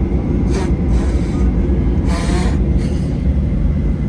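Steady low rumble inside the cabin of a Boeing 737-800 on the ground just after landing, with a few brief hissing sounds over it.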